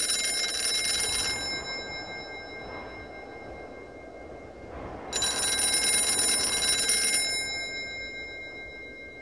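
Telephone bell ringing twice: a ring of about a second and a half at the start and a longer ring of about two seconds some five seconds in, each fading out. Underneath runs a steady drone of held tones.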